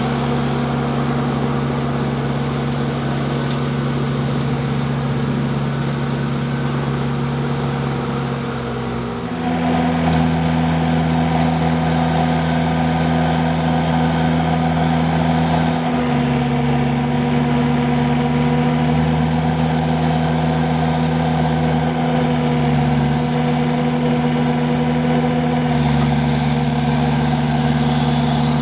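Machine engine and hydraulic drive running a boom-mounted Cyclone 48-inch rotary brush mower, a loud, steady hum. It shifts pitch and gets a little louder about nine seconds in, with smaller pitch changes later.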